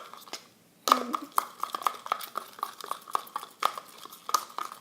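Slime being stirred in a container, the mixing utensil knocking against its side in quick short clicks, about four a second, starting about a second in.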